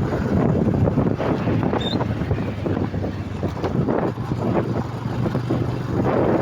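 Vehicle engine running loud and rough with no exhaust silencer fitted, the raw exhaust note unmuffled, with some wind on the microphone.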